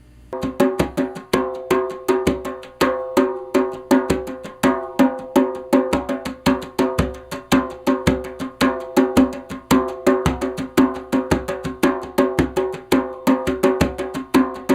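African hand drum played in a fast, steady rhythm of sharp strikes with a ringing pitched tone, starting just after the opening.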